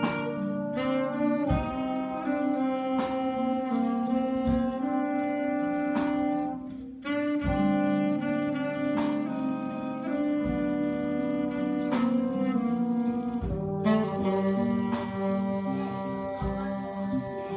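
Trombone and saxophone playing a slow melody together in long held notes, over a sustained low accompaniment.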